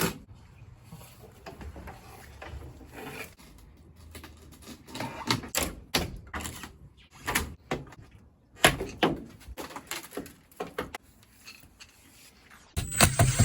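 Irregular clicks, knocks and clatter of hand tools and metal parts being handled while stripping a truck's interior. Near the end a much louder, steady mechanical noise with a thin high whine starts.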